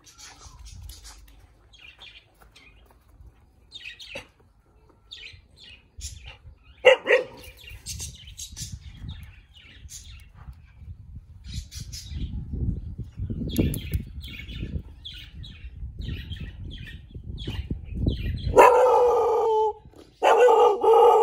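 Thai Bangkaew dog barking. There is one sharp bark about seven seconds in, then a long drawn-out bark and a run of barks near the end, with small birds chirping throughout.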